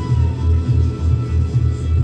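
Sound-and-light-show soundtrack music: a deep bass pulse throbbing about three times a second under held drone tones.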